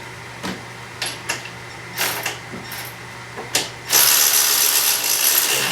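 Ratchet wrench with a 13/16 socket tightening a new spark plug in a Honda GCV170 mower engine: a few separate clicks and knocks, then from about four seconds in a fast, loud run of ratchet clicks that cuts off near the end.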